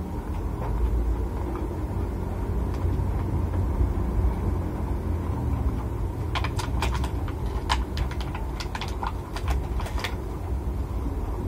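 Eating sounds from a boxed rice meal eaten by hand: a steady low rumble throughout, and from about halfway a quick run of sharp clicks and crackles as fingers pick through the food and he chews.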